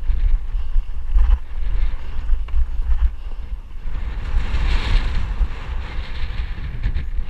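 Wind buffeting a mountain bike's on-board camera microphone while riding over sandstone slickrock, under the rattle and rolling noise of the tyres on rock. A louder rushing hiss rises and fades about four and a half to five and a half seconds in.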